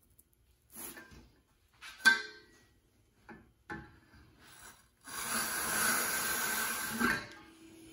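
Red Amcraft V-groove duct board tool pushed along an aluminium layout square, cutting a groove through fiberglass duct board: a steady scraping hiss for about two seconds in the second half. Before it, a sharp knock and a few light clicks as the square and tool are set in place.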